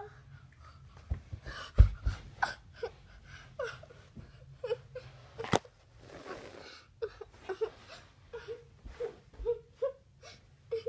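A voice making short, broken crying and whimpering sounds over and over, with a few sharp knocks from the plush toys being handled.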